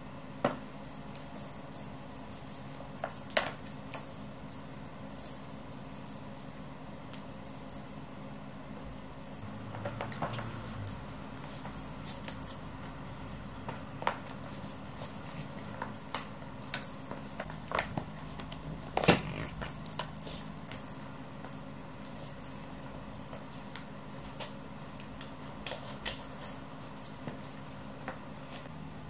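Scattered clicks and light rattles of a cat batting at a feather wand toy inside a plastic ball-track toy, the sharpest click about two-thirds of the way through. Soft background music runs underneath.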